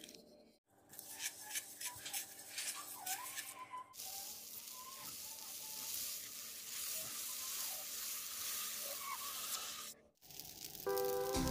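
Small wet clicks and scrapes of thick moong dal batter being handled, then, from about four seconds in, a steady sizzle of pesarattu batter spread with a ladle on a hot tawa.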